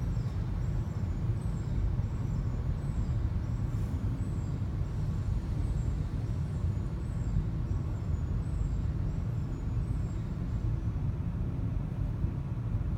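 Automatic car wash heard from inside the car: a steady low rumble of the wash machinery and water spray on the car's body, muffled through the cabin.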